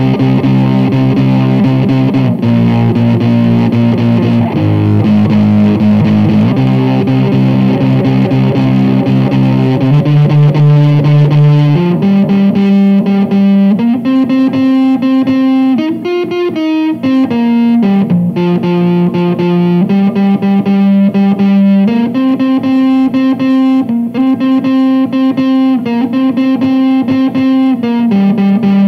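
Ibanez semi-hollow electric guitar playing chords, distorted and dense for roughly the first twelve seconds, then clearer and ringing, with the chord changing about every two seconds.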